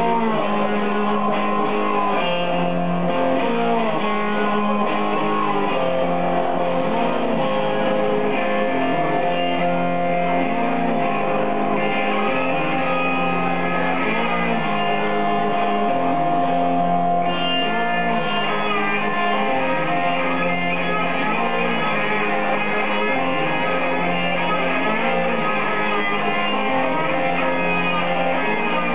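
Blues guitar played live: an instrumental passage of plucked and strummed notes, many of them held and sustained, at a steady volume with no singing.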